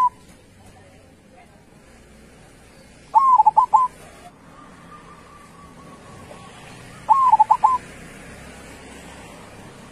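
Zebra dove (perkutut) cooing: two short phrases of quick, stuttering coos, each of about four notes, roughly four seconds apart.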